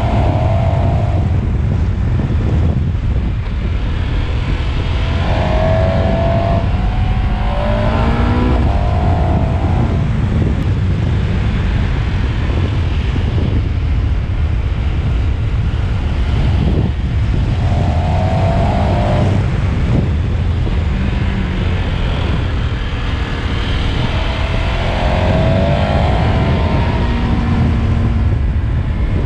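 KTM 1290 Super Adventure's V-twin engine running under load on a mountain climb, its note rising in pitch several times as it pulls and revs, over a steady low rumble.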